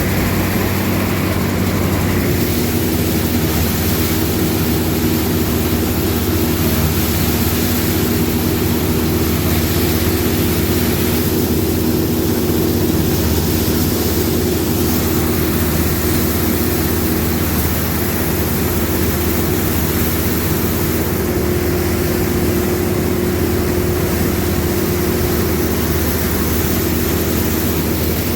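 Combine harvester running steadily under load, its engine drone with the wide hiss of the threshing and cleaning machinery, small shifts in engine tone a couple of seconds in and near the end.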